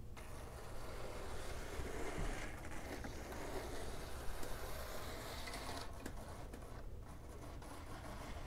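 Small electric motor and wheels of a vintage HO scale model steam locomotive running along the track, faint and uneven, dropping out briefly twice near the end. The stuttering comes from oxidization on the wheels, which spoils electrical pickup and calls for a wheel cleaning.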